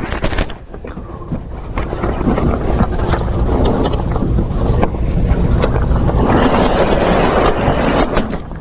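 Chalk tapping and scraping on a blackboard as a line of writing goes up, under a loud, steady low rumble from a poor-quality microphone recording.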